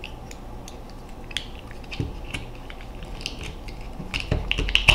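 Light clicks and taps from handling a Ruger 10/22's polymer trigger group and its small metal parts: a few scattered clicks, then a quicker run of louder clicks near the end.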